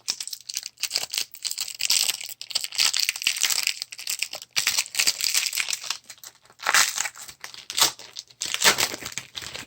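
A trading card pack wrapper being torn open and crinkled by hand, an irregular crackle throughout with louder rustles twice near the end.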